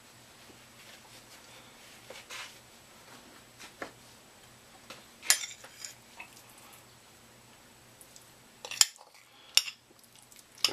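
A metal spoon clinking and scraping against a ceramic bowl while scooping thick creamed spinach: a few scattered clinks, the sharpest about five seconds in and two more near the end.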